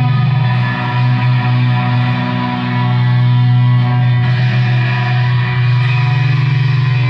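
Loud distorted electric guitar playing held, droning notes, with a shift in the notes about four seconds in.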